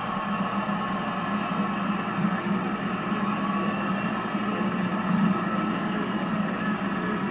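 Steady murmur of a ballpark crowd, even and without distinct cheers or words.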